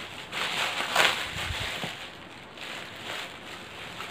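Plastic courier mailer bag crinkling and rustling as hands open it and pull a boxed item out. The rustling comes in bursts, loudest about a second in and again around three seconds in.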